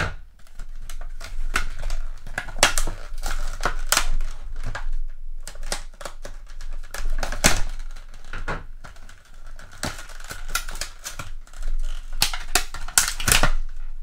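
Hard plastic clamshell blister pack crackling and clicking in irregular bursts as it is cut and pried open to free a folding pocket knife.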